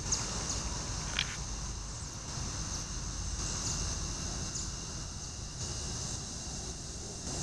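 Evening insect chorus: a steady high-pitched trilling with short chirps repeating about every half second, over a low rumble. A short sharp note stands out about a second in.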